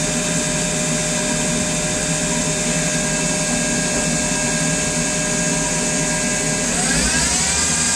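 Hardinge CHNC1 CNC lathe spindle running free at about 4,000 RPM with a steady whine over a machine hum. About seven seconds in, the whine glides upward and settles at a higher pitch as the spindle speed changes.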